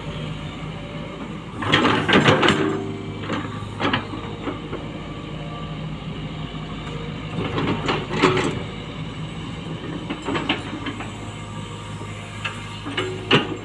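Tata Hitachi Zaxis 120H excavator's diesel engine running steadily, with several bursts of scraping and clanking as the bucket and arm work the soil. The loudest bursts come about two seconds in and around eight seconds.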